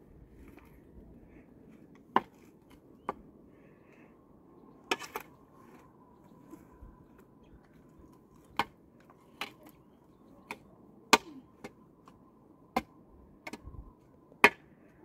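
Metal shovel blade digging into stony earth, striking stones with sharp, irregular clinks about once a second.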